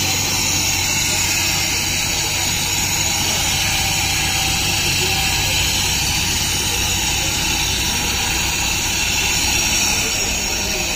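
Kharra mava machine running, its electric motor turning the canister of chopped areca nut mix with a steady whirring hum and hiss.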